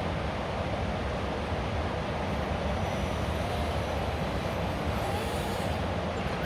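An RC rock crawler's electric motor and geared drivetrain whirring steadily as it crawls.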